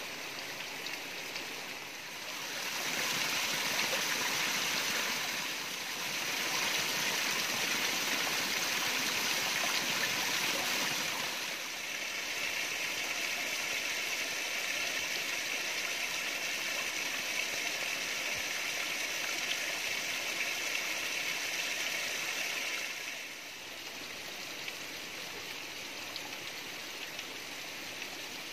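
Steady rain falling, getting heavier a couple of seconds in and easing off again near the end.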